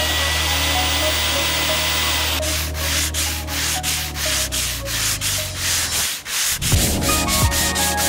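A handheld electric router running on wood, which cuts off about two and a half seconds in. It gives way to hand sanding of a wooden panel with a sanding block: rhythmic back-and-forth strokes, about three a second.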